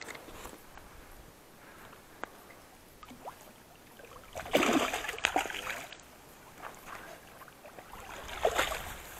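Water splashing as a hooked pike of about a kilogram is fought in. There is a loud rough burst of splashing about four and a half seconds in and a smaller one near the end.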